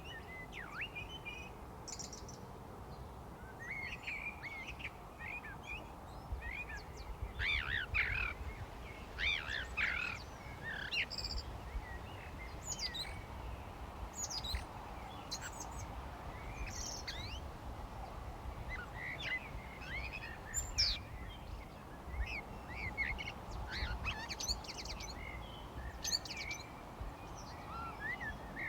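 Spring birdsong ambience: several wild birds chirping and singing in short, overlapping calls and trills, over a steady low background noise.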